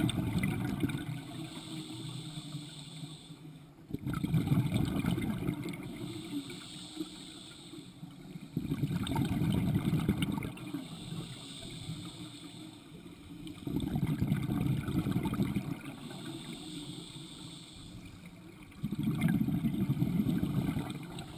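Scuba diver breathing through a regulator underwater: a soft hiss on each inhale, then a burst of bubbles rumbling out on each exhale, five breaths about every four to five seconds.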